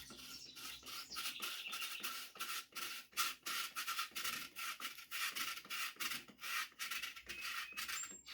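Giant Contact Switch dropper post and its cable housing scraping and rubbing in the bike's seat tube as the post is worked up out of the frame, in irregular short rasps, several a second.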